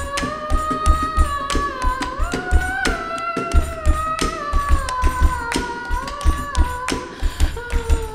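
A woman singing a wordless melody in long held notes that glide slowly up and down, over a steady live beat of low thumps and sharp clicks.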